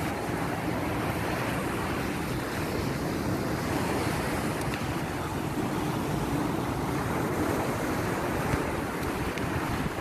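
Steady wash of sea surf mixed with wind, with gusts rumbling on the phone's microphone.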